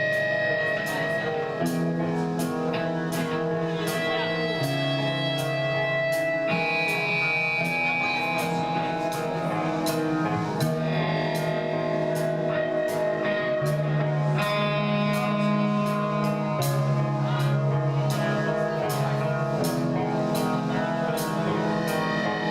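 Guitar music: held chords that change every couple of seconds over a steady beat.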